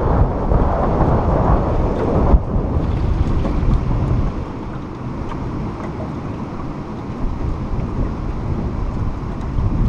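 Wind buffeting the microphone in a loud, pitchless low rumble. It is strongest for the first couple of seconds and eases off from about four seconds in.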